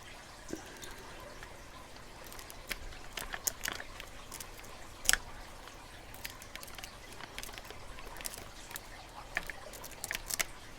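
Pick and tension wrench working a six-pin pin-tumbler padlock: faint scraping with scattered small, sharp clicks, one louder click about five seconds in and a quick run of clicks near the end.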